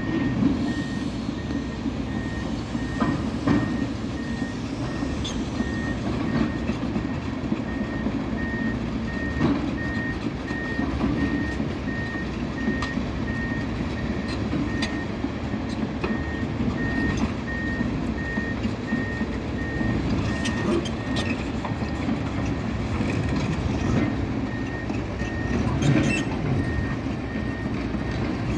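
Heavy construction machinery running with a steady engine rumble, while a reversing alarm beeps over and over at an even pace. Scattered knocks and clanks of material are heard now and then.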